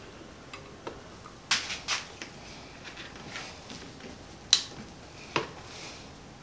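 A few sharp metallic clicks and knocks with faint rustling as a Surron Light Bee's front wheel is worked into the fork and the axle slid through. The sharpest knock comes about four and a half seconds in.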